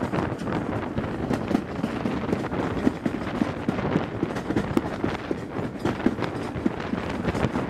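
LMS Hughes Crab steam locomotive hauling a train at speed, heard from an open carriage window: a running mix of its exhaust beats and the coaches' wheels clattering over the rails, with rapid, uneven knocks several times a second.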